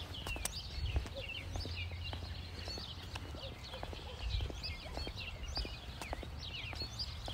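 Small birds chirping and trilling throughout, with scattered irregular clicks of steps on pavement.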